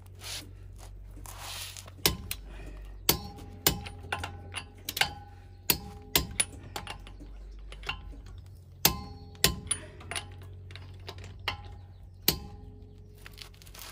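Hand torque wrench on a car wheel's lug nuts: sharp metallic clicks from the ratchet head and its release, some with a brief ring, coming irregularly over a dozen or more times as the nuts are tightened to 120 N·m.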